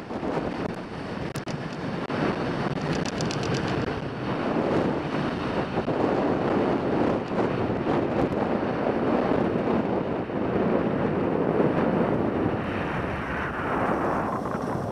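Wind buffeting the microphone of a helmet-mounted action camera during a downhill ski run, mixed with the steady hiss of skis on groomed snow. The higher hiss eases off near the end as the skier slows.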